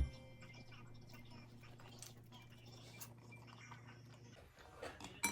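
Faint room sounds: a low steady hum that stops about four seconds in, a few soft clicks and taps, and a sharper tap near the end.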